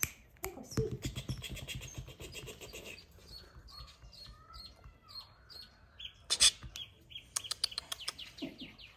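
Chow Chow puppies making high-pitched squeaks and whimpers that sound like bird chirps. They come in quick runs in the first few seconds and again later on.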